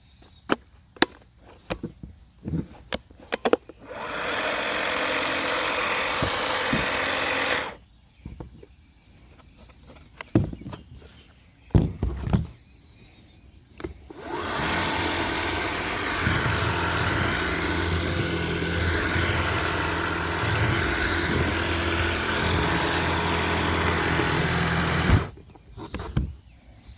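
Kärcher KB5 cordless sweeper switched on and running twice, a few seconds the first time and about eleven seconds the second, with a steady motor and brush noise over a low hum. Clicks and knocks of handling come before each run.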